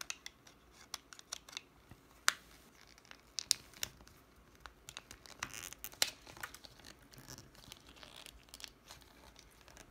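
A replacement sunglass lens being worked into a plastic Oakley Monster Dog frame by hand: scattered small clicks and creaks of lens and frame, with fingers rubbing on the plastic. The sharpest clicks come about two, three and a half, and six seconds in.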